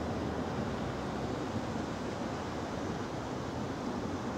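JR East 205 series 3100 electric commuter train rolling in slowly, heard as a steady low rumble and hiss.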